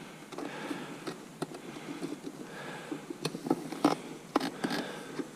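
A series of irregular sharp clicks and knocks with light scraping in between, the loudest knock nearly four seconds in.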